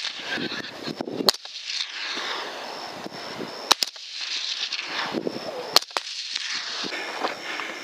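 Three suppressed rifle shots about two seconds apart, fired into a fleeing herd of feral hogs. Between the shots there is a steady rushing noise while the herd runs off.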